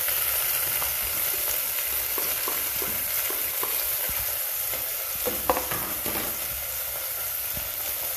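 Chopped onions frying in hot oil in a pan: a steady sizzle, with a light knock about five and a half seconds in.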